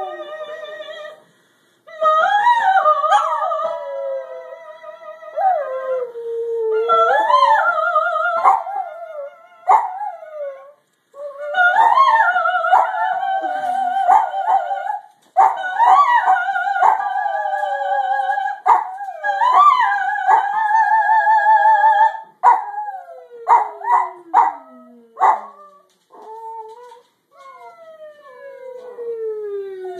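A dachshund howling along with a woman's vocal warm-up singing: several long, wavering phrases with short pauses between them. Near the end come a few shorter calls and falling glides.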